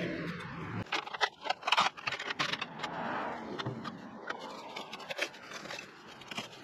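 Clearing of overgrown vegetation by hand: a run of sharp snips, clicks and scrapes with rustling. It follows a steady motor hum that cuts off suddenly just under a second in.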